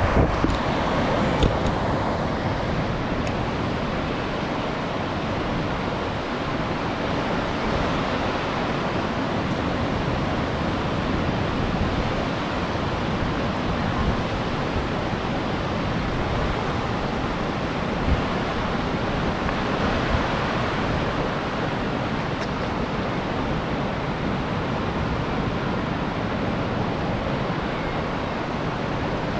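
Steady rushing noise of wind buffeting the microphone, with a gusty low rumble.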